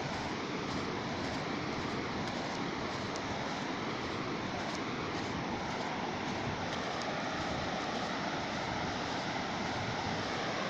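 Ocean surf: sea waves breaking and washing on the shore in a steady, unbroken wash of noise.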